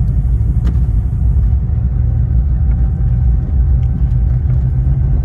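Cessna 402C's twin turbocharged Continental flat-six piston engines and propellers running steadily while the plane moves on the ground, heard from inside the cabin as a loud, even drone with a steady hum on top.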